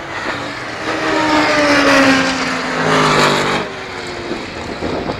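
Race cars passing at speed, their engine notes sliding down in pitch as they go by. The sound swells to its loudest in the middle and drops off sharply about a second and a half before the end.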